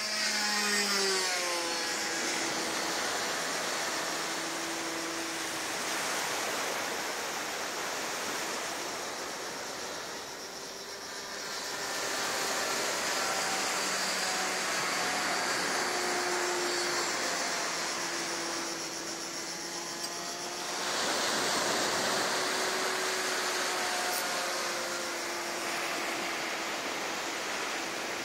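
Radio-controlled model plane's OS 61 nitro engine running at full throttle in flight, a steady high buzzing whine that swells and fades several times as the plane passes and turns, its pitch dropping at the start as it flies by.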